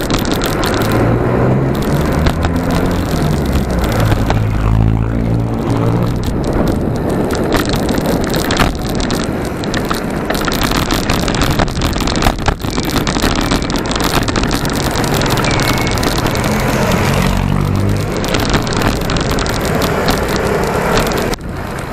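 Wind rushing over the microphone of a moving bicycle, with street traffic noise throughout. Motor scooter engines drone as they pass, once a few seconds in and again later on.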